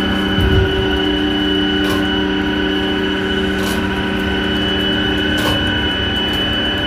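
Steady running machinery, a constant hum with a high whine. There is a low thump about half a second in, and a sharp tick comes roughly every two seconds.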